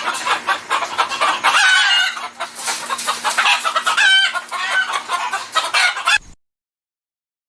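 Chickens clucking and calling, many overlapping calls, which cut off suddenly about six seconds in.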